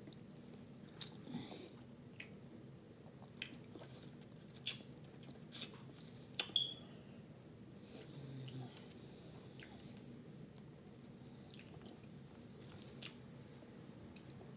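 A person chewing food close to the microphone, with scattered wet mouth clicks and smacks. A few sharper clicks come around the middle.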